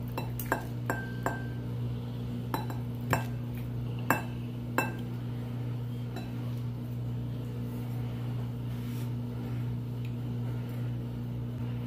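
A knife clinking against a ceramic bowl while cutting through baked patty pan squash, about seven sharp clinks in the first five seconds. A steady low hum runs underneath.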